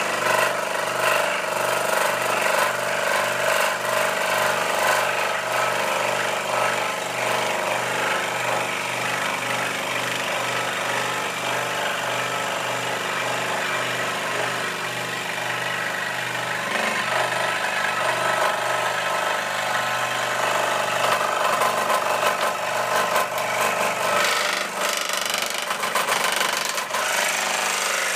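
Record Power SS16V variable-speed scroll saw running, its blade cutting a curve through pine about 20 mm thick, with a steady fast rattling pulse. The saw vibrates quite a bit with wood on it. The low part of the sound thins out near the end.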